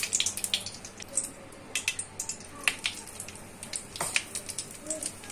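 Melted ghee crackling and sizzling in a metal kadhai, with irregular sharp pops over a faint hiss, as coarse gram flour is added to it; a couple of louder clicks stand out, one near the middle and one about four seconds in.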